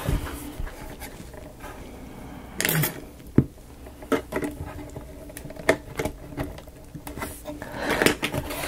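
Scattered light clicks and taps of small miniature-kit pieces being handled and pressed into place, with one sharp click about three and a half seconds in.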